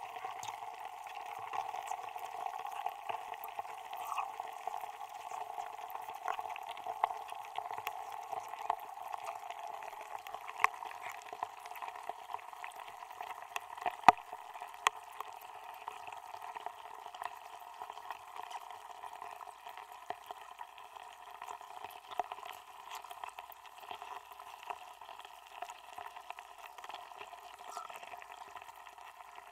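A melting block of ice submerged in water, heard through contact microphones frozen inside it: a steady, hollow fizzing hiss thick with tiny ticks and pops. Now and then a sharper crack stands out, the loudest about halfway through.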